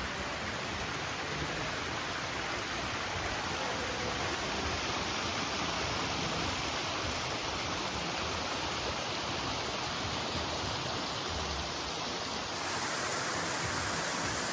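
Steady rush of falling water, an even hiss with no breaks; the sound brightens slightly near the end.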